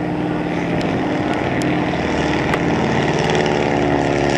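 Boeing Stearman biplane's radial engine and propeller droning steadily overhead in aerobatic flight, the pitch shifting a little as it manoeuvres.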